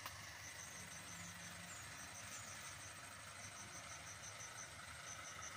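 Faint outdoor ambience: insects chirping in short, quick trains of high-pitched pulses, repeating in groups, over a steady low rumble.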